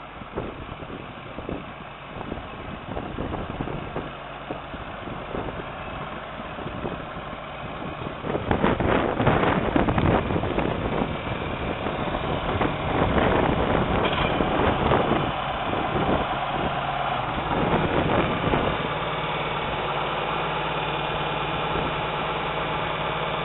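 John Deere 4430W tractor's 6.6-litre six-cylinder turbo diesel running. It gets louder about eight seconds in, with an uneven stretch, then settles into a steady idle over the last few seconds.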